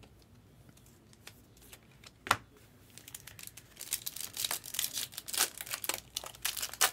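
Foil wrapper of a Bowman Sapphire trading-card pack being torn open and crinkled by hand. A single sharp click comes a little over two seconds in, then a run of dense crackling from about three seconds on, loudest near the end.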